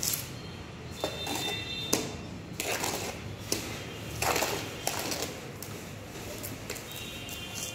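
Steel trowel scooping wet cement-based tile adhesive out of a mixing pan and spreading it over old floor tiles: a series of scrapes and wet slaps, the sharpest about two seconds in.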